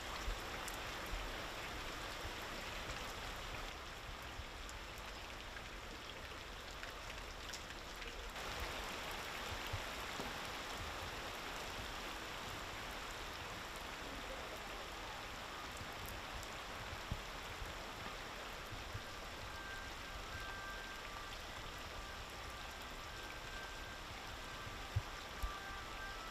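Heavy rain pouring down onto flooded streets: a steady, dense hiss of falling drops, with a few isolated sharp ticks.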